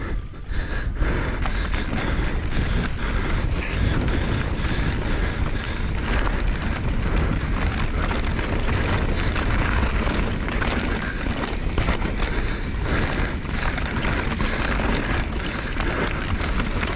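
Wind buffeting the camera microphone and knobby mountain-bike tyres rumbling over dirt and rock during a fast downhill descent, with a constant clatter of small knocks from the bumps.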